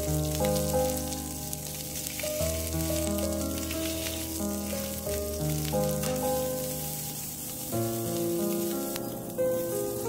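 Skewered shrimp sizzling as they fry in oil in a nonstick pan, with background music playing over the sizzle.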